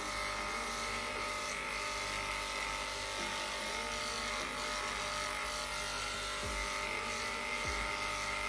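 Corded electric hair clipper running with a steady buzzing hum.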